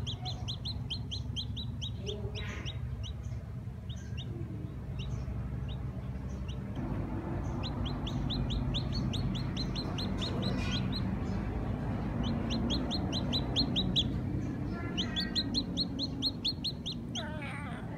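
Black chick peeping: rapid runs of short, high peeps, several a second, with a lull of a few seconds early on. A steady low hum runs underneath.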